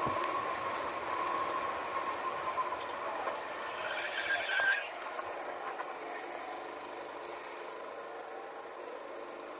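Go-kart engine running at speed, heard from the kart itself with wind noise, then quieter as the kart slows for a corner. About four seconds in there is a brief high squeal, likely the tyres under braking and cornering.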